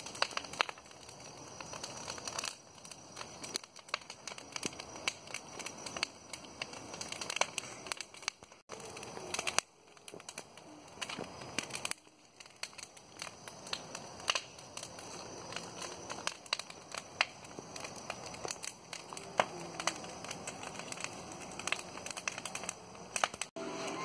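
A large bonfire crackling, with many sharp pops and snaps over a steady hiss of burning.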